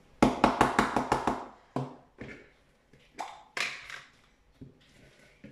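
Hard plastic kitchenware knocking: a quick run of about seven sharp taps in the first second and a half, then a handful of single knocks.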